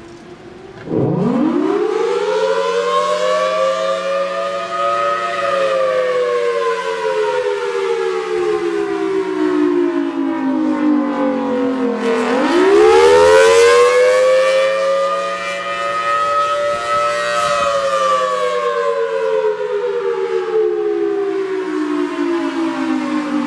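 Federal Signal Thunderbolt 1003A outdoor warning siren winding up about a second in and sounding the attack signal, its two-tone chord from 5/6 porting rising in pitch for about five seconds, falling for about six, then rising and falling again. The siren is louder for a couple of seconds as the second rise begins.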